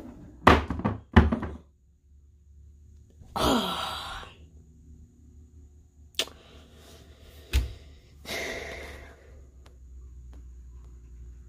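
Hollow plastic traffic cone thunking down onto wooden stair treads twice in quick succession, then a person's sigh; later a lighter click, another thud and a breathy exhale.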